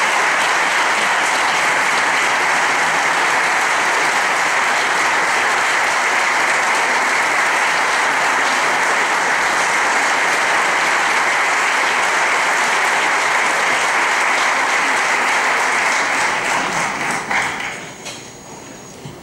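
Audience applauding in a concert hall: a dense, steady clapping that dies away over the last few seconds.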